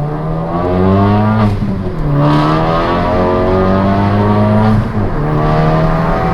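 Ford Focus ST's turbocharged 2.0-litre four-cylinder accelerating hard through the gears, running a Pumaspeed pop-and-bang map. Its note climbs steadily, drops at a gear change about one and a half seconds in and again about five seconds in, then climbs again.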